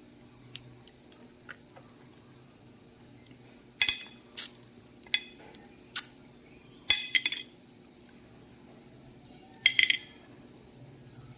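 Sharp clinks of hard objects against a ringing dish while eating sugar apple, in separate taps and quick clusters: single ones about four, five and six seconds in, and rattling runs around seven seconds and near the end.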